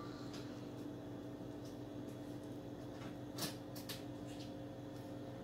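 Soft wet handling of a pork chop being dredged in egg wash in a glass bowl, with two short knocks about three and a half and four seconds in, over a steady low hum.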